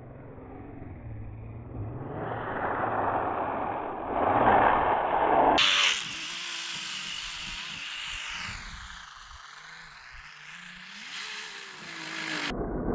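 Brushless electric motor of a 3D-printed RC snowmobile whining as it is driven across the snow some way off. It is loudest a little before halfway, and its whine dips in pitch and rises again later on.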